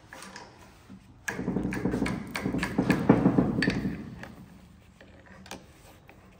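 Metal clattering and ratcheting from hand tools working a gear out of a Centurion tank starter motor's reduction gearbox, starting suddenly just over a second in and lasting about two and a half seconds, with a few lighter clicks after.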